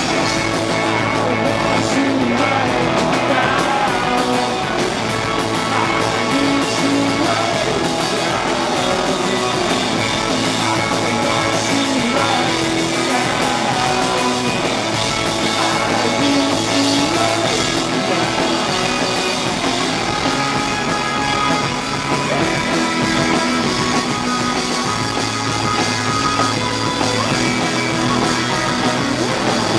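Live rock band playing loud and steady: electric guitars, bass guitar and drum kit, with a male lead vocal sung into a microphone.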